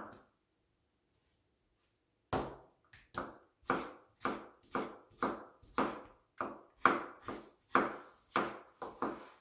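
Kitchen knife slicing a tomato on a wooden cutting board, the blade knocking the board about twice a second, starting a little over two seconds in.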